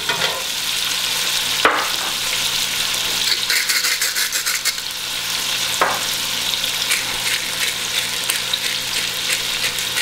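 Chopped onions and garlic frying in hot oil and beef drippings in an aluminium pot, a steady sizzling hiss, with a few light clicks over it, a cluster of them in the middle.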